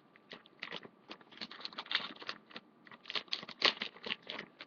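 Yu-Gi-Oh booster pack being opened and its cards handled: an irregular run of quick crinkles and clicks from the foil wrapper and card stock.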